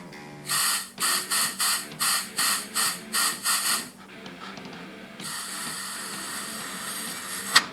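High-speed rotary grinding tool whining in about eight short bursts, then running steadily from about five seconds in, grinding out a check ball hammered into the accumulator feed hole of a 4L60E transmission case. A sharp click comes near the end.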